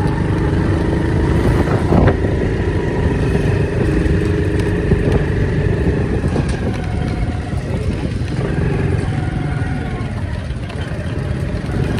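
Small motorcycle engine running steadily while being ridden along a road, with a heavy low rumble; the engine note shifts about halfway through.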